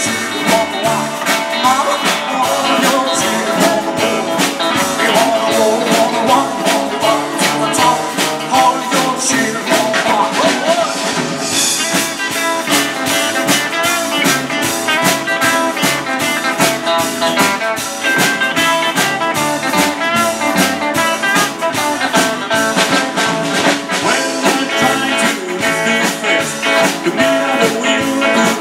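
Live band playing an instrumental passage in a blues and rock-and-roll style: electric guitar, acoustic guitar, upright double bass and drum kit, with a steady beat.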